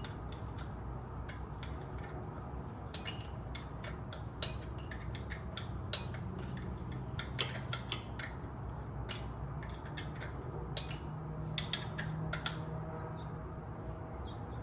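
Small metallic clicks and clinks from a hand tool working an Allen bolt loose on a motorcycle's starter mount, coming irregularly, a few a second at the busiest, over a steady low hum.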